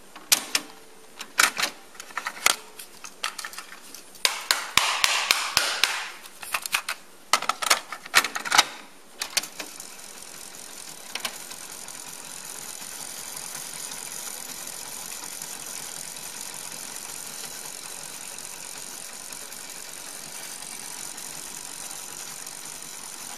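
Pioneer CT-F500 cassette deck's piano-key transport buttons clacking in a series of clicks and clunks over the first nine seconds, then the deck rewinding the tape with a steady motor whir and tape hiss.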